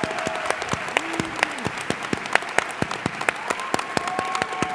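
Audience applauding in a large hall, a dense patter of claps, with a few drawn-out cheers rising over it about a second in and again near the end.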